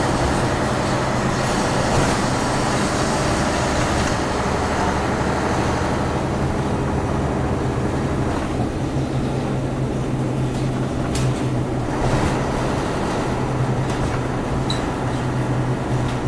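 DAF MB 200 bus with a Wilson gearbox, its diesel engine running under way with steady road noise. At about eight and a half seconds the higher noise falls away, and it comes back about twelve seconds in, with a sharp click or two in between.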